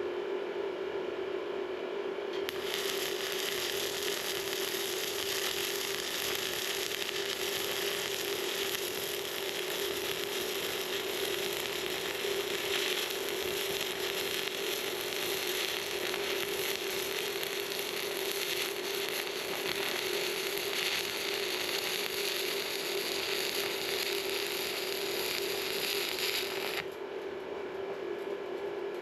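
Stick-welding arc crackling steadily as a 2 mm 6013 electrode is slid continuously along a thin sheet-metal joint at 60 amps. The arc strikes about two and a half seconds in and breaks off a couple of seconds before the end, over a steady hum that runs throughout.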